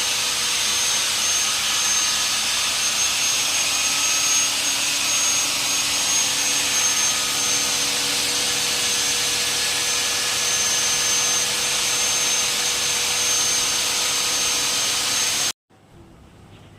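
CNC wood router running steadily on its trial run, a loud even hiss with a thin high whine over it; it stops abruptly about a second and a half before the end.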